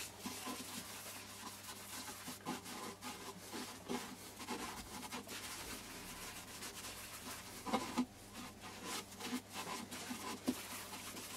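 Hand and cloth rubbing finishing oil into a turned honey locust wooden bowl: soft, irregular wiping and rubbing strokes, with a louder swipe about eight seconds in.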